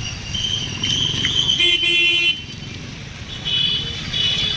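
A vehicle horn honks once for under a second, over the low running of passing road traffic.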